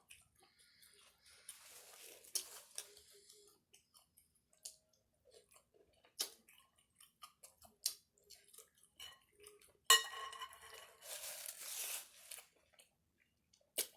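Utensils and dishes clinking and scraping as food is dished into a bowl: scattered light clicks, with one louder, ringing clink about ten seconds in followed by a couple of seconds of scraping.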